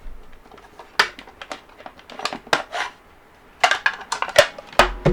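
Hands handling a model plane kit's parts and packaging: scattered sharp clicks and light rattling knocks, growing denser near the end.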